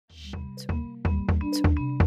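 Soundtrack music with a steady beat: low bass notes, regular percussion hits and short bell-like tones. It fades in from silence at the very start.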